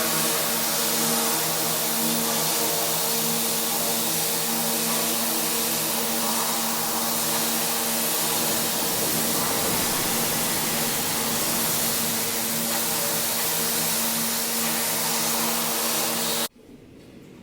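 Pressure washer running steadily: a steady motor hum under the loud hiss of high-pressure water spray, which stops abruptly near the end.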